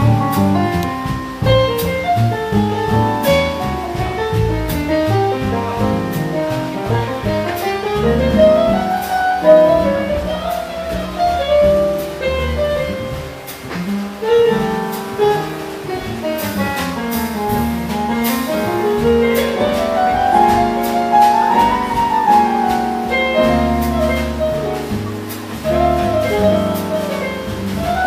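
Jazz quartet instrumentals in bossa nova style: a digital stage piano plays melodic runs that climb and fall, over an upright double bass and a drum kit with light cymbal strokes.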